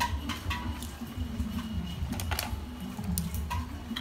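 Light, irregular clicks and taps of small plastic toy kitchen pieces being handled and chewed, over a steady low rumble.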